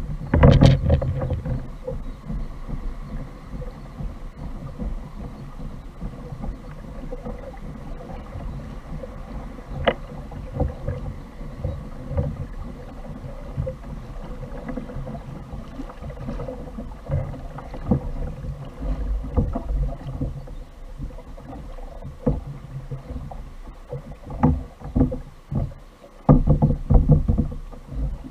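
Fishing kayak on the sea: water lapping and sloshing against the plastic hull, with irregular knocks and bumps on the kayak. The knocks are loudest right at the start and again in a cluster near the end.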